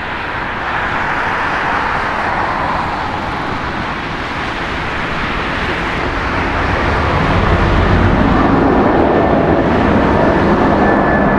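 Airbus A330 jet engines at takeoff power: a loud, steady roar that grows louder and deeper about seven seconds in, with a thin high whine showing near the end.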